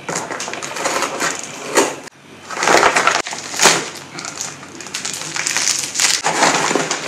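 Crinkling and rustling of plastic packaging being handled and pulled open, coming in several louder crackling swells.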